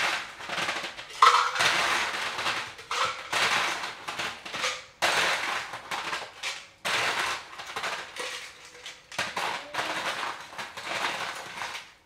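Small ice cubes rattling and clinking as they are scooped into a cup, in several crunchy runs with short breaks between them.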